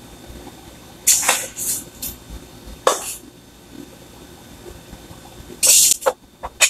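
A plastic spoon scooping chocolate drink powder out of a metal tin, in a few short scraping, rustling strokes with pauses between them.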